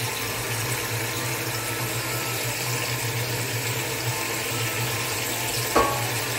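Steady bubbling and hissing of food cooking on a gas stove: chicken and potatoes simmering in their juices in a large aluminium pot, beside a pot of water at the boil. A short knock about six seconds in.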